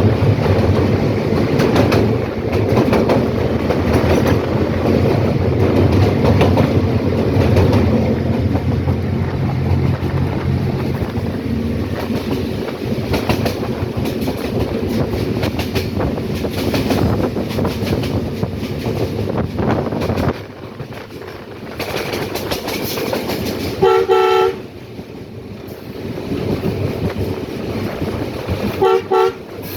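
Train running along the track, a steady rumble of wheels and locomotive that drops off about two-thirds through. The train horn then gives one short blast, followed by two quick short toots near the end.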